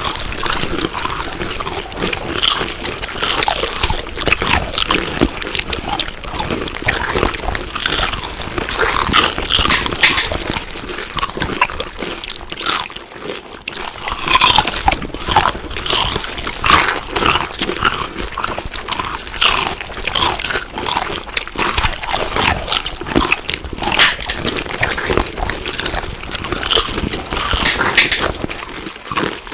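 Close-up chewing of crunchy food: rapid, irregular crunches and bites with wet mouth sounds, continuing without a break.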